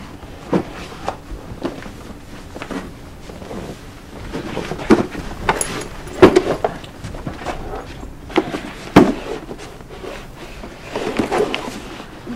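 Scattered knocks and thuds of shoes and cardboard shoe boxes being handled, with footsteps. The loudest knocks come about 5, 6 and 9 seconds in.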